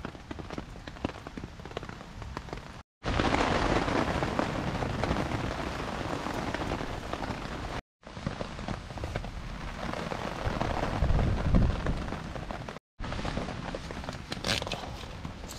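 Rain pattering on a tarp with a wood fire crackling and popping in a folding fire stand. The sound is broken by three brief dropouts, with a low rumble about two-thirds of the way through and a few sharp pops near the end.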